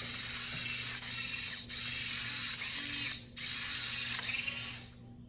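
Motorized injector gun buzzing as it injects platelet-rich plasma into the scalp at the hairline. It runs in four bursts of about a second or so each, with short pauses between, and stops near the end.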